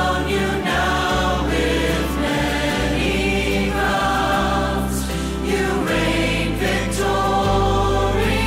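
Worship song sung by a group of voices over instrumental accompaniment, with sustained bass notes changing every second or two.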